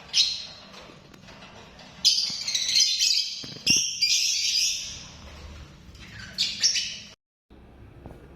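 Lovebird squawking in harsh, shrill bursts: a short call at the start, a long chattering run from about two to five seconds in, and another burst near the end.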